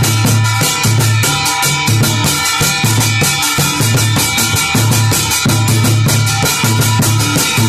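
Large rope-laced drum beaten with a stick in a fast, steady rhythm, with a deep low stroke about once a second.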